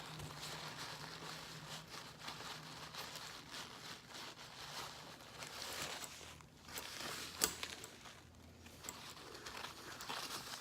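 Faint crinkling and rustling of a paper towel being rubbed over a wet stainless steel watch band to dry it, with a single sharp click about seven and a half seconds in.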